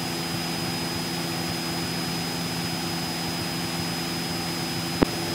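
Cessna 172 Skyhawk's engine and propeller droning steadily in the climb after takeoff. A thin steady high whine sits over it, and there is a single click about five seconds in.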